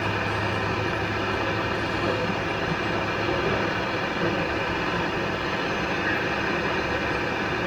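A steady machine noise running without a break.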